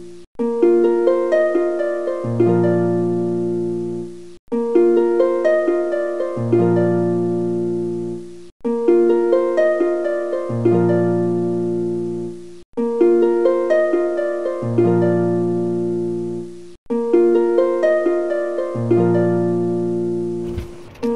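Background music: a short phrase of plucked-string notes over bass notes, looping about every four seconds with a brief break between repeats.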